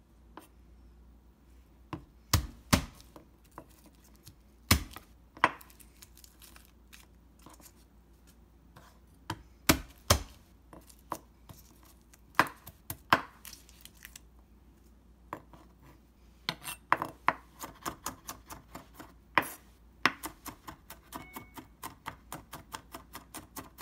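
Chef's knife chopping garlic cloves on a bamboo cutting board. Scattered single knocks at first, then about two-thirds of the way through a quick, even run of chops, roughly four a second, as the garlic is minced.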